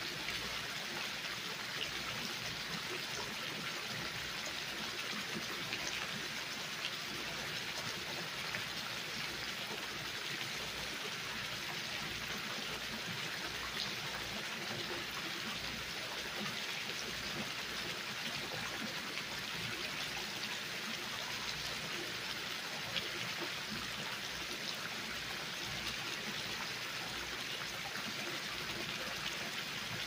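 Water-wall fountain: a thin sheet of water running down a stone wall and splashing into a shallow pool, a steady, even splashing with no pauses.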